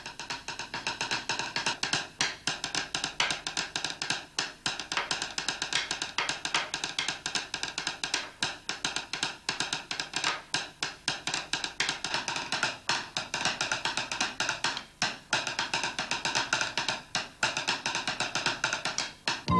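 Pair of wooden drumsticks beating fast, dense rolls and patterns on a wooden tabletop, many sharp strikes a second with a few brief breaks.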